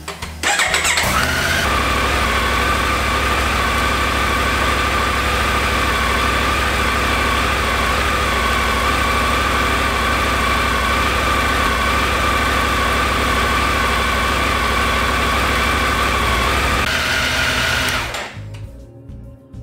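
Triumph Tiger 900's 888 cc inline three-cylinder engine starting about a second in and idling steadily, then switched off near the end.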